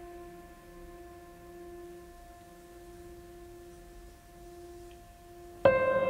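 Background music: a soft held chord that slowly fades, then a louder new chord comes in sharply near the end.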